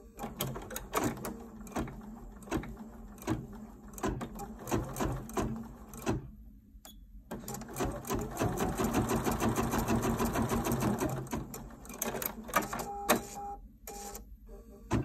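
Bernina 790 embroidery machine stitching out decorative lines, the needle clicking in quick repeated strokes. It stops briefly about six and a half seconds in, stitches fast and steadily for a few seconds, then slows to separate clicks near the end.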